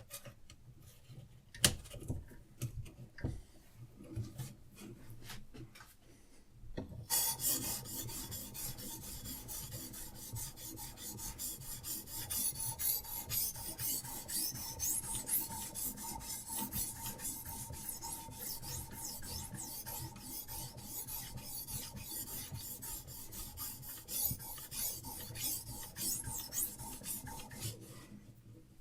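A diamond sharpening stone on a Hapstone RS guided sharpener rasping back and forth along a knife's edge. The steady scraping starts about seven seconds in and runs until just before the end. Before it there are a few scattered clicks and knocks, one of them sharp.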